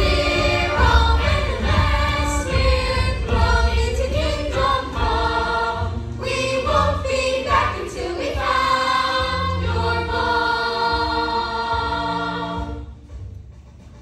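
A young stage-musical cast singing together in chorus over a musical accompaniment; the song ends about thirteen seconds in.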